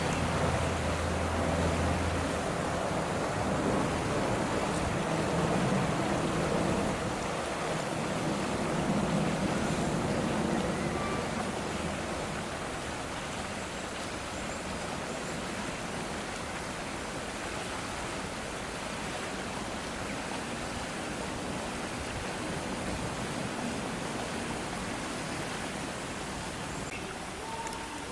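Strong wind rushing over the microphone and through the surroundings, a steady noisy rush that is heavier and deeper in the first half.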